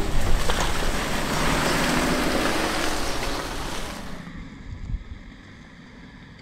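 INEOS Grenadier crawling over loose rock and gravel off-road: a loud, even rush of noise with wind on the microphone. About four seconds in it drops to a quieter low rumble, with a single knock a second later.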